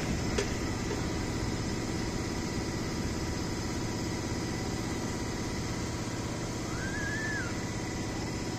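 An engine idling steadily with a low rumble. A brief high chirp comes about seven seconds in.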